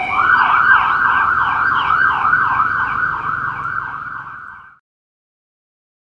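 Police siren in a fast yelp, the pitch sweeping up and down about two and a half times a second after a brief falling wail at the start. It fades a little, then cuts off suddenly about five seconds in.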